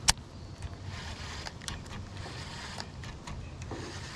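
A baitcasting reel clicks sharply once into gear as the retrieve begins. After it comes a steady low rumble of wind and water with a few faint ticks.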